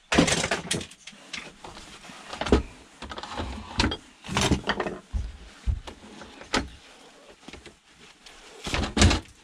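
Plastic parts of a dismantled Vax vacuum cleaner knocking and clattering against a wooden workbench as the housing is handled and pulled apart to free the motor. The knocks come irregularly, the loudest near the start and again near the end.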